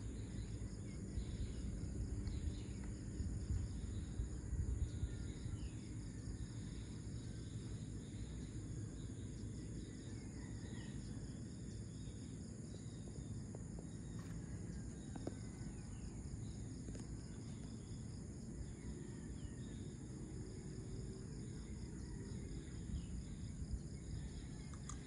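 Dawn ambience of insects chirring in a steady high chorus over a low steady rumble, with a few short bird chirps scattered through.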